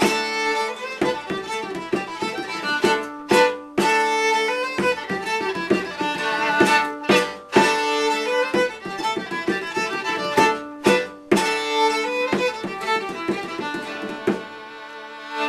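Irish folk tune played on fiddle over a strummed or plucked string accompaniment, at a lively, even rhythm, ending and dying away near the end.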